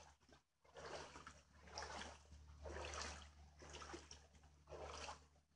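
Rain and floodwater splashing and trickling, rising and falling in irregular surges about once a second over a faint steady low hum.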